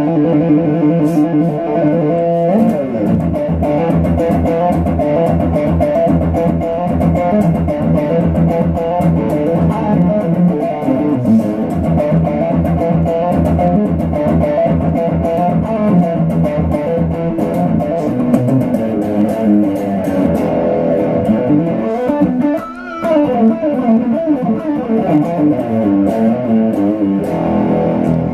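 A Fender Stratocaster electric guitar played through an amplifier in quick single-note melodic runs. About four-fifths of the way in there is a brief break and a wavering bent note.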